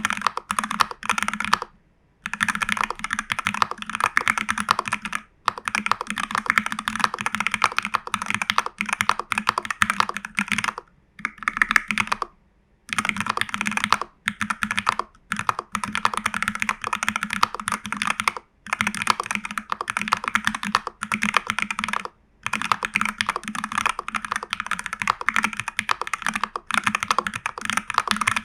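Fast, steady typing on a TU40 mechanical keyboard in a plastic case, with Jelly Strawberry v3 switches and CRP keycaps, foam-filled and tape-modded. It is a dense run of keystrokes broken by short pauses, about two, five, eleven to thirteen, fifteen, eighteen and twenty-two seconds in.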